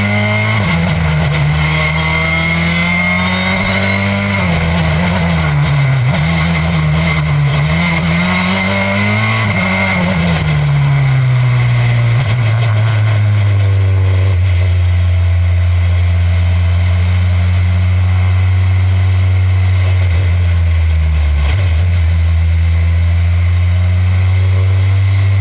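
Citroën C4 WRC rally car's turbocharged 2.0-litre four-cylinder engine heard on board, revving up and dropping back through quick gear changes for about the first ten seconds, then settling into a steady, even note.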